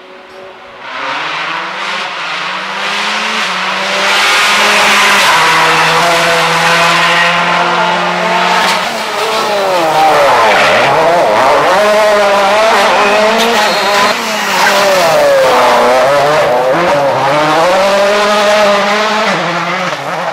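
Rally car engines revving hard at full throttle, the note climbing and dropping with each gear change as the cars drive past at speed, one passing close by about halfway through.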